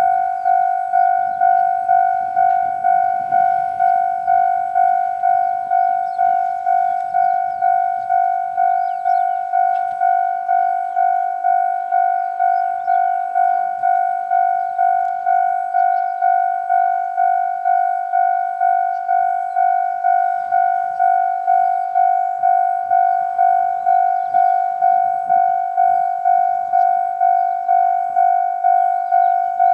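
Railway level-crossing warning bell ringing over and over at an even pace, about one and a half strikes a second, each strike a clear ringing tone: the crossing's alarm signalling an approaching train.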